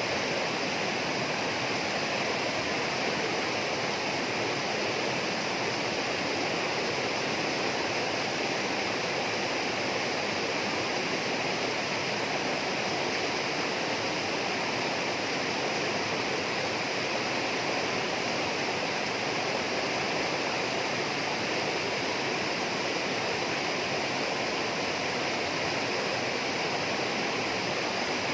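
Tropical rainforest ambience: a steady, unbroken rush of flowing water at an even level, with a constant higher hiss above it.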